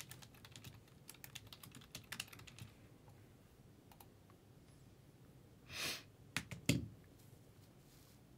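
Typing on a computer keyboard: a quick run of keystrokes for the first couple of seconds, then a short swish and a few louder clicks with a low thump near the end.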